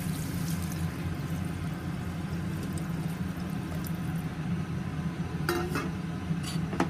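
Water poured from a steel glass into a pressure cooker of hot fried masala and potato pieces, over a steady low hum. A couple of sharp metal clinks come about five and a half seconds in.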